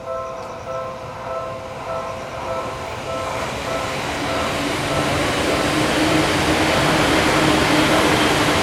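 Railroad crossing warning bell dinging steadily, then a Seibu Railway train passing, its running noise swelling from about halfway and drowning out the bell, with a steady hum underneath.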